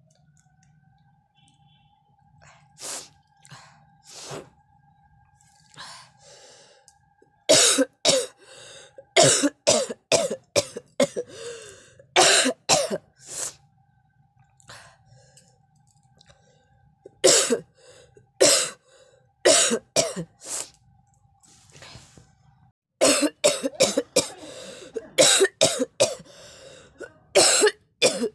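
A person coughing on purpose in repeated fits of rapid coughs, with pauses between the fits.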